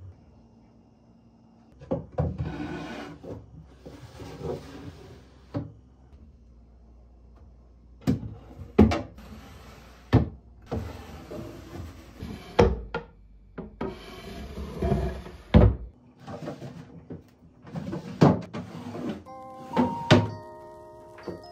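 Wooden drawers of a rolling cart sliding open and shut on their runners, with casters rolling on a tiled floor and a series of sharp wooden knocks as drawers bump closed. Music comes in near the end.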